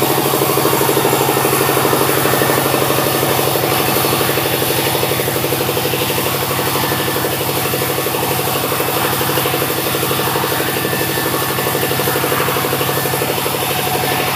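Sawmill machinery running with a steady engine drone, even in pitch and loudness throughout.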